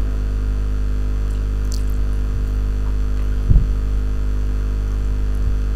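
Steady electrical mains hum with a stack of buzzing overtones, unchanging throughout, with one brief low thump about three and a half seconds in.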